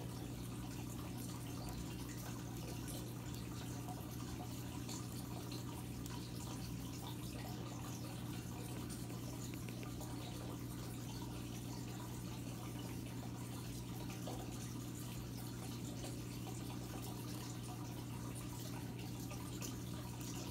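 Aquarium filter running: water splashing steadily into the tank over a low, steady motor hum.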